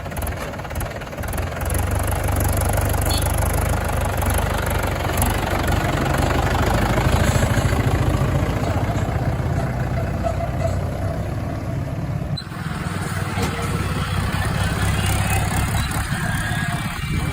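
Heavy diesel engines of a backhoe loader and tractors running steadily at a mud-digging site, working louder from about two seconds in. The sound changes abruptly about twelve seconds in.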